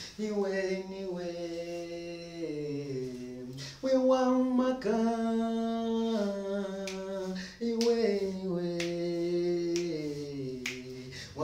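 A man singing a gospel song solo and unaccompanied, holding long notes and stepping from one pitch to the next. A few sharp clicks, like finger snaps, sound now and then among the notes, with the slight echo of a small room.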